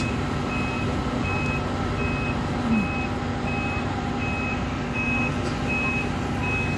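Electronic warning beeper sounding over and over, about three beeps every two seconds, over the steady drone of an idling fire truck's diesel engine.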